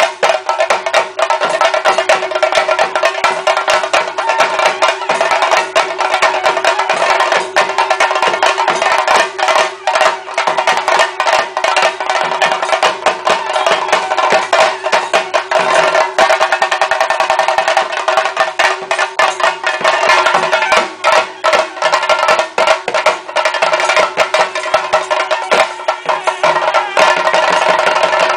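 Ensemble of chenda, the cylindrical Kerala temple drums, beaten with sticks by several drummers in a fast, dense, continuous rhythm of sharp cracking strokes. A steady held tone sounds beneath the drumming.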